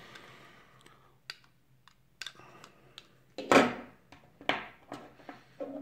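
Small plastic clicks and rustles of a USB wall charger and its cable being handled and set down on a table, with two louder knocks a little past the middle.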